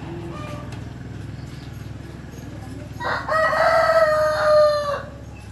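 A rooster crowing once: a single call of about two seconds, starting about three seconds in, held on one pitch and dropping at the end.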